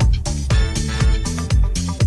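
Upbeat electronic dance background music with a steady four-on-the-floor beat, a kick drum about twice a second under a bass line.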